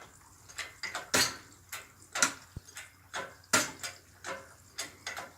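An irregular series of sharp clicks and light metallic clinks, roughly one or two a second, from metal hardware being handled.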